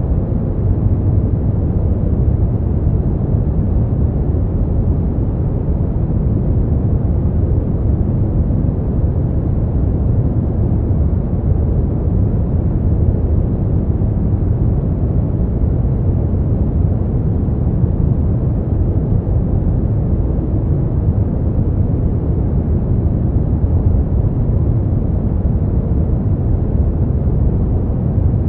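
Smoothed brown noise: a steady, deep rumbling hiss with most of its weight in the low end, even and unchanging throughout.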